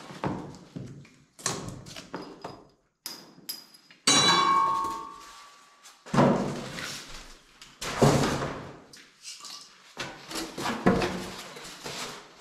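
Unpacking a Bluerock core drill rig: cardboard and styrofoam packing scraping and knocking. A squeak of styrofoam rubbing about four seconds in. Two heavy thuds around the middle as the steel drill stand and box are moved on the concrete floor.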